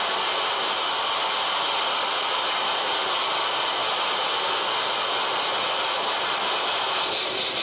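Live harsh noise music from tabletop electronics: a dense, unbroken wall of hissing noise, brightest in the upper-middle range and holding a steady level, its texture shifting slightly near the end.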